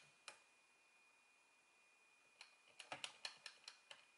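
Faint plastic clicks from a DX Kaenken Rekka toy sword as a hand works the yellow emblem on its hilt. There is one click just after the start, then a quick uneven run of about eight clicks past halfway, over a faint steady high tone.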